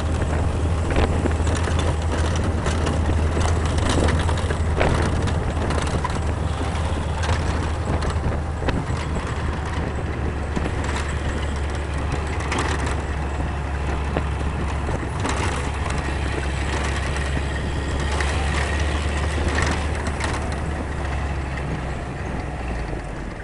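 UAZ-469 off-road vehicle's engine running steadily with a low drone while driving along a rough road, with scattered knocks and rattles, fading a little near the end.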